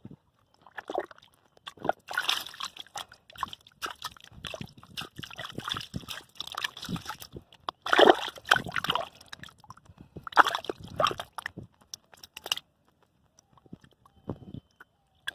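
Muddy water sloshing and splashing in irregular bursts as hands work through a mud hole, loudest about eight and ten and a half seconds in, then settling briefly near the end.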